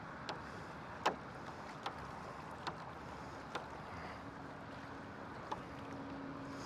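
Quiet water and wind noise around a kayak, with a series of sharp ticks a little under a second apart and a faint steady hum coming in about four seconds in.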